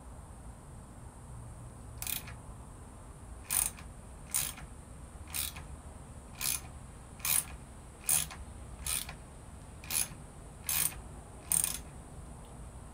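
Ratchet wrench clicking through a series of about eleven short back-strokes, a little under a second apart, as a bolt is tightened into the chainsaw housing.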